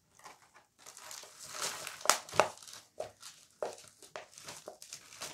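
Thin disposable plastic cup crinkling as it is squeezed and tipped, with potting mix spilling out onto the table in irregular rustles and small sharp clicks.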